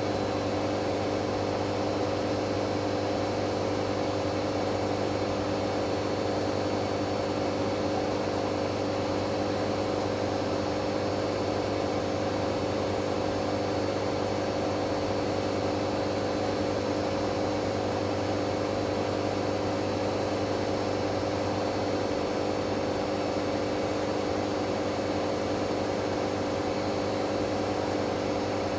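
Hoover Dynamic Next washing machine on a spin-only cycle, its drum spinning at a steady speed: an even motor whine over a low hum, with no change in pitch or level.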